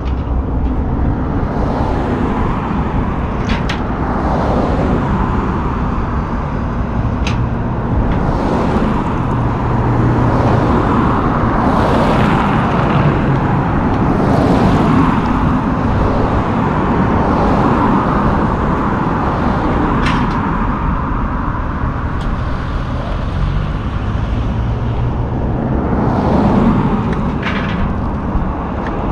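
Steady low diesel rumble of the idling Peterbilt car carrier, with road traffic swelling past now and then and a few short, sharp metallic clicks.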